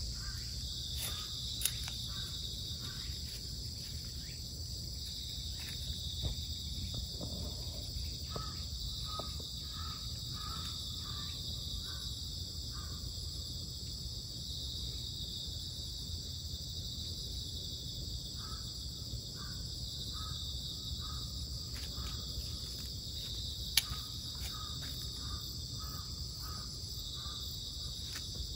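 Steady, high shrilling of an insect chorus, with a bird calling in series of short repeated notes partway through and again later. There are a couple of sharp clicks.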